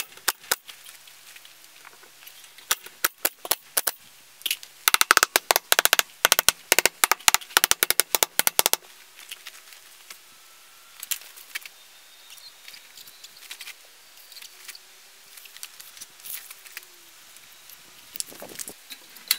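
Pneumatic coil nail gun driving nails into wooden battens: a few single shots, then a rapid string of shots from about four and a half seconds in for roughly four seconds, then only a few light knocks.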